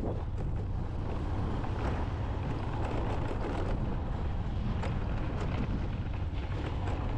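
Motorcycle engine running steadily while riding on a rough dirt road, with wind buffeting the microphone and a few short knocks.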